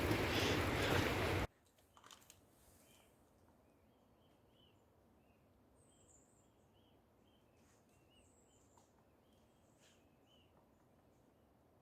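A loud, even rushing noise that cuts off abruptly about a second and a half in. Faint bird song follows: many short chirps repeated every fraction of a second, with a few higher, thinner notes.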